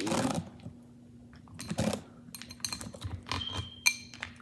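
A run of quick clicks and taps from cooked crab and lobster in their shells being handled and arranged, with a couple of short rustles near the start.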